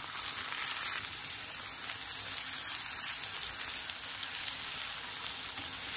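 Raw chicken liver frying in a hot pan of onions fried in oil and butter, with a steady crackling sizzle.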